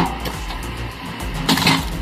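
Background music with a steady low bed and sharp percussive hits, one at the start and a cluster about one and a half seconds in.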